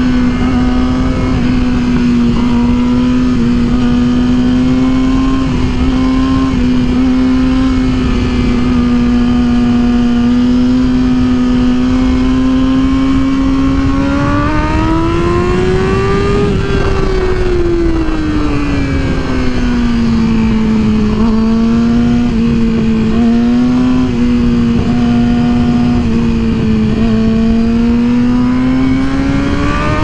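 Yamaha YZF-R6's inline-four engine at highway cruise, heard from the saddle, holding steady revs; about halfway through the revs rise for a couple of seconds and fall back, and they climb again near the end. Wind and road noise run underneath.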